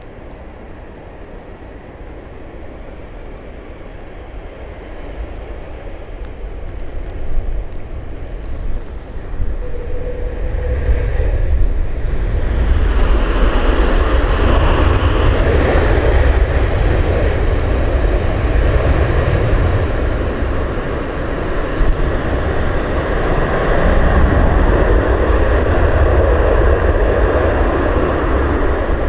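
Airbus A330-300 jet engines, growing steadily louder as the airliner approaches to land. About twelve seconds in they jump to a loud, sustained jet noise with a deep rumble that holds through the rollout on the wet runway, as reverse thrust throws up spray.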